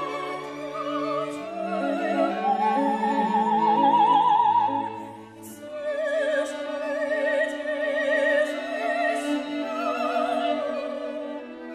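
A soprano singing classical art song with vibrato, accompanied by a string quartet of two violins, viola and cello. Her line climbs to a held high note over the first few seconds, the music eases briefly about five seconds in, then voice and strings carry on.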